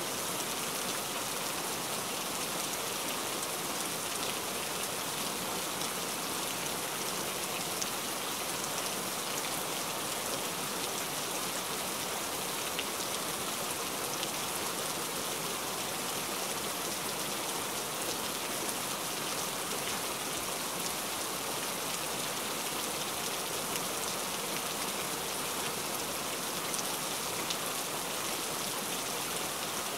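Heavy rain falling steadily: a dense, even hiss of drops that does not change.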